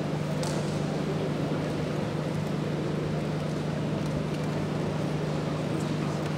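A steady low hum over a constant background hiss, with a couple of faint clicks.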